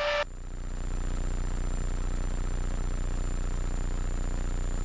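Hummingbird helicopter in cruise flight, heard from inside the cabin: a steady, unbroken low drone of engine and rotors, with a faint steady high tone over it.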